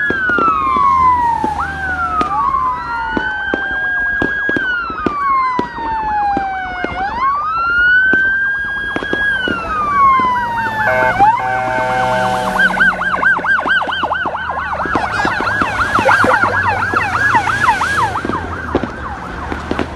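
Emergency vehicle sirens from a fire engine and an ambulance driving past, with engine and road noise underneath. For the first half a siren runs a slow wail, rising and falling over a few seconds. About eleven seconds in, a fast yelp joins that warbles several times a second.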